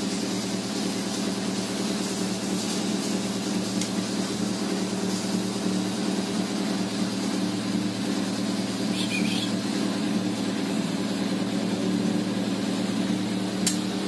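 A steady, low mechanical hum with several even tones, with a brief high chirp about nine seconds in and a sharp click near the end.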